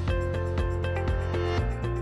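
Background music: held notes over a light, even beat.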